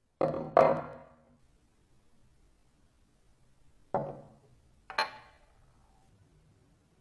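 Painted metal vise parts set down on a hard tabletop: two knocks half a second apart, then two more a second apart a few seconds later, each with a brief metallic ring.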